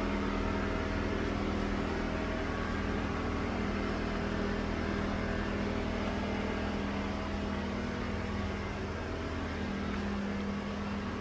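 Wen 56235i inverter generator's four-stroke engine running steadily with no load, a constant even hum with no change in speed.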